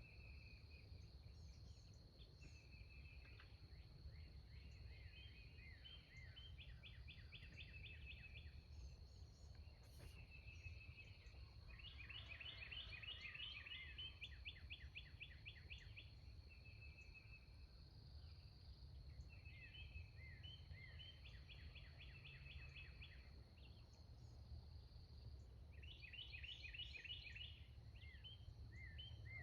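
Faint songbirds singing in repeated rapid trilled phrases of a few seconds each, over a steady low rumble and a thin steady high tone.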